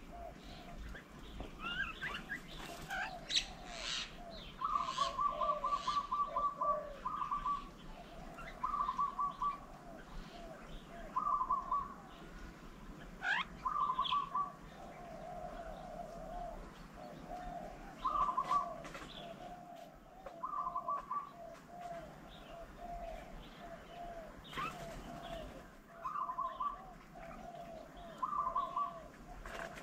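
Birds calling: one gives short, rapid trills about a second long, repeated every couple of seconds, over a near-continuous run of lower repeated notes from another bird.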